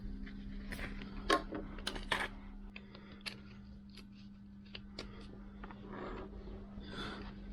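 Light metallic clicks and taps of hand tools and a steel split pin at a scooter's rear hub nut, as the pin is pushed through and its legs worked into place. The sharpest clicks come in the first couple of seconds and lighter ones follow, over a steady low hum.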